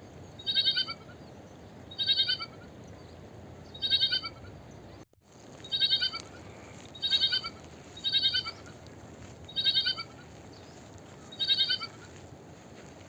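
A lamb bleating over and over: eight short, high-pitched, wavering bleats, one every one to two seconds, each dropping in pitch at the end. There is a brief cut to silence about five seconds in.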